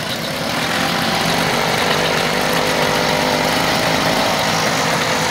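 Several classic Victa two-stroke lawn mower engines running together. About a second in, the sound gets louder and fuller as another engine joins in.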